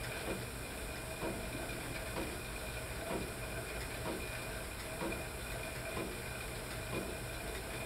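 Stationary cycle ergometer running steadily under constant pedalling, a continuous whir with a soft rhythmic pulse about once a second from the pedal strokes.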